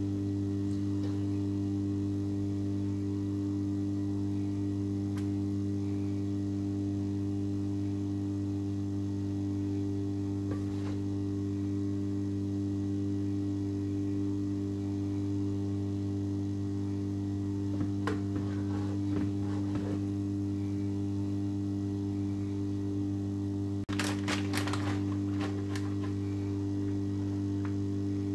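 A steady low electrical hum, with several stacked tones that never change. It is broken twice by short bursts of light clicking and clattering, a little past halfway and again near the end, as topping pieces are handled over a metal baking tray.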